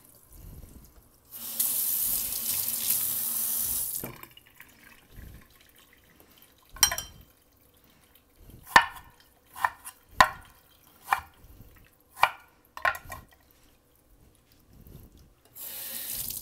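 Kitchen faucet running water into a stainless steel pot of pork neck bones, filling it for soup stock. The flow is loud for a couple of seconds near the start and again near the end, quieter between. Through the middle come about eight sharp clicks, a second or less apart, louder than the water.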